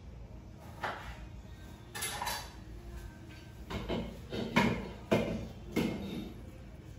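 Kitchen utensils and dishes being handled: about six short knocks and clinks, the loudest a little past the middle.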